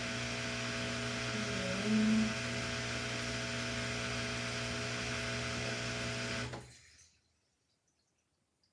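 Samsung washing machine running its final spin: a steady motor hum and whir, with a short wavering tone about two seconds in. The sound cuts off about seven seconds in, leaving near silence.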